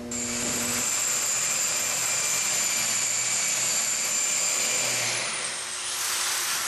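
Power drill boring a hole into the steel frame of a Jeep Wrangler for a bumper mounting bracket: a steady high whine with grinding noise that starts suddenly. Near the end the pitch dips and rises again.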